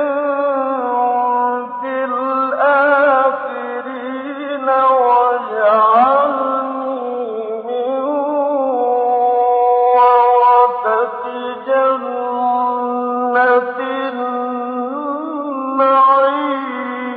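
A male Quran reciter chanting slowly and melodically, holding long notes with wavering ornaments in phrases of a few seconds each, with short pauses between them. The old recording sounds narrow, with no treble.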